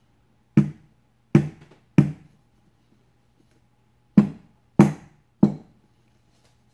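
Aluminium chiffon-cake tube pan full of batter dropped onto a towel-covered counter six times, in two sets of three. Each drop is a sharp thud with a short ring, knocking air bubbles out of the batter before baking.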